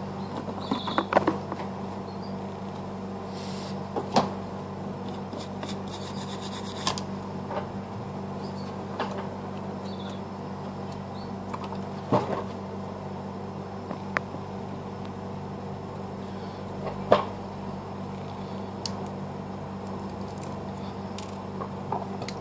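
Small clicks and taps of smartphone parts and tools being handled on a workbench, with a few sharper knocks, the loudest about three-quarters through, over a steady electrical hum.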